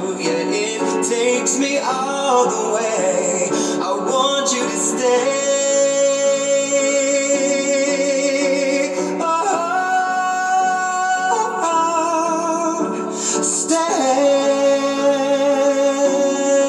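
Man singing into a microphone over recorded backing music with guitar, holding long, wavering notes with vibrato.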